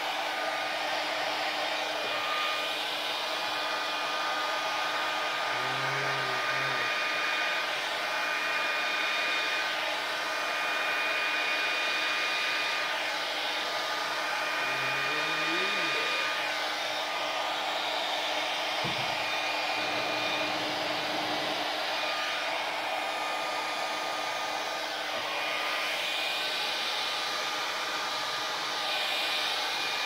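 Handheld hair dryer running steadily, a continuous rush of air with a steady whine, blowing across wet acrylic paint on a canvas.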